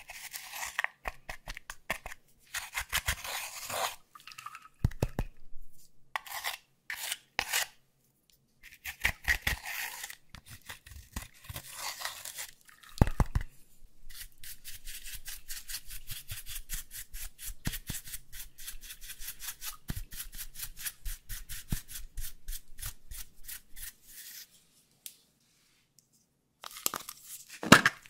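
A small tool scraping and crumbling pressed eyeshadow out of the pans of a makeup palette: bursts of fast, scratchy strokes with short gaps, then a long unbroken run of scraping in the second half. After a brief pause, a few louder sharp clicks near the end.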